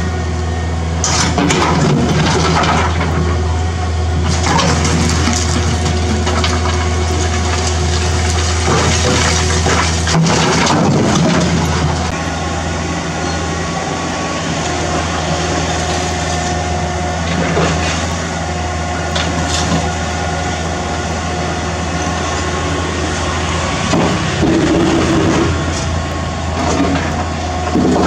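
A mini excavator's diesel engine runs steadily while bucketloads of demolition rubble (broken brick, concrete and wood) are dumped into a steel dump-truck bed. The dumps crash and rattle several times, with the loudest crash about ten seconds in.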